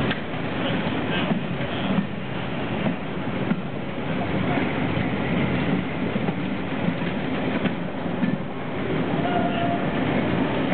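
Railway passenger coaches rolling past at close range: a steady rumble of wheels on rails, with now and then a click of wheels over a rail joint.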